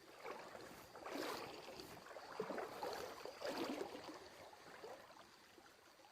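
Mountain stream water rushing and splashing, swelling and falling in irregular surges.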